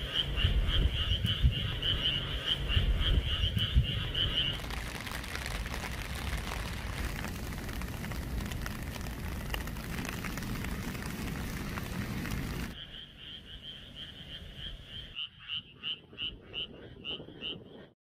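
Frogs calling in a chorus of fast pulsing trills, about five pulses a second. About four seconds in, steady rain falling on a puddle takes over. Near the end the frog calls return, slower and more spaced out.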